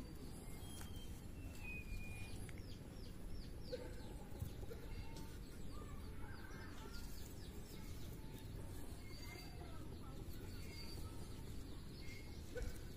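Outdoor ambience: birds chirping in many short, quick calls over a steady low rumble.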